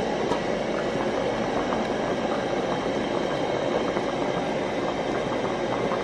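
Water boiling hard in a large aluminium pot of cocoyam corms: a steady bubbling rush. The cocoyam is being boiled soft for pounding.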